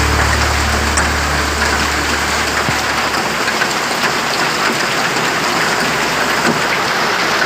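Heavy rain mixed with hail pouring down: a steady, dense hiss with scattered small ticks.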